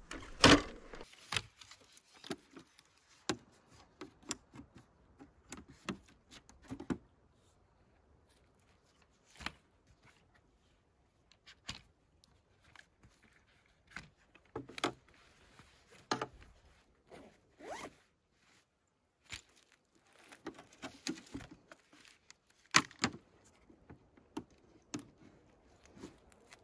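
Scattered clicks, knocks and short rasping rustles of camping gear being handled and packed, with quiet gaps between them; the loudest knocks come just after the start and about 23 seconds in.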